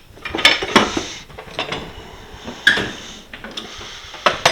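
Metal hand tools clinking and rattling in a tool box drawer as it is handled: a handful of separate sharp knocks and clicks.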